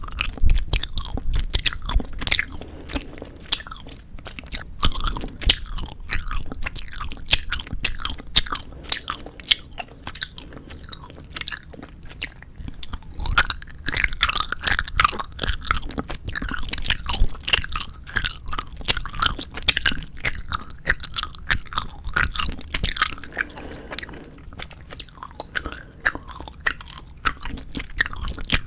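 Close-miked chewing of 4D gummy jelly: soft bites and sticky, squishy mouth sounds with irregular wet clicks and crackles.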